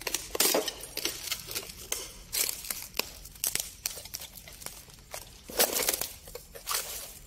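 Footsteps crunching over broken debris on the floor: irregular crunches and crackles underfoot, loudest a little after the midpoint.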